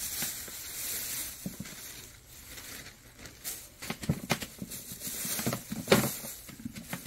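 A cat gnawing and tugging at raw fish scraps with bones in them: scattered short clicks and light knocks, mostly in the second half.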